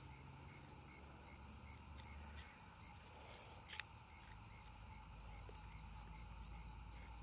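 Faint night-time cricket chirping: a high chirp repeating fast and evenly.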